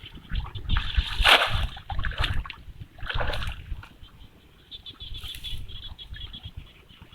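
Water splashing and sloshing in irregular bursts, loudest about a second in and again about three seconds in.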